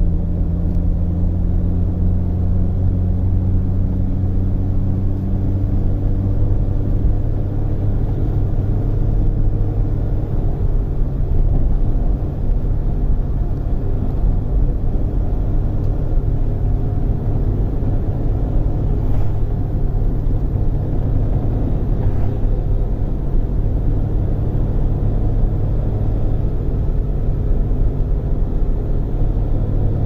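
Inside-the-cabin sound of a 2005 Saturn Ion's 2.2-litre four-cylinder engine pulling while driving, a steady low drone with road noise. The engine pitch rises over the first several seconds, and the level briefly dips about twelve seconds in.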